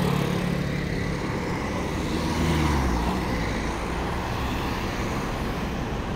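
Street traffic: a motor scooter's engine passes, and a Mercedes-Benz city bus's engine winds down as it pulls in to the stop.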